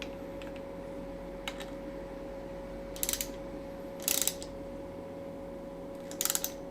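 Ratchet wrench clicking in three short bursts while tightening the lock nut of a timing-belt tensioner pulley on a Ducati 848 engine, over a steady background hum.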